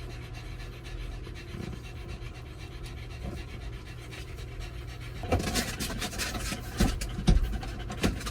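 A dog panting rapidly, loudest from about five seconds in, with a couple of dull thumps near the end.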